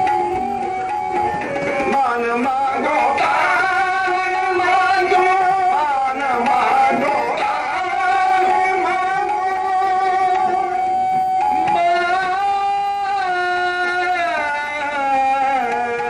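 Sikh kirtan in Raag Maligaura: a voice sings the raag's ornamented, gliding lines over harmonium, with tabla keeping time.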